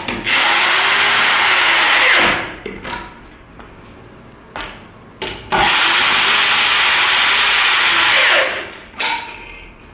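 Electric drill running under load in two runs of about two and three seconds, with short handling knocks between them.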